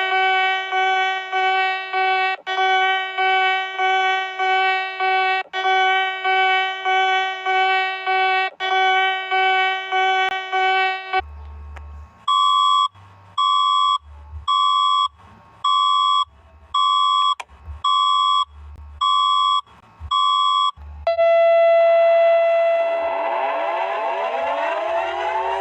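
Emergency alert alarm tones. First a steady, buzzy alarm tone pulsing about twice a second. About eleven seconds in it changes to a run of about nine short beeps, roughly one a second, and then to a steady tone overlaid with repeated falling sweeps.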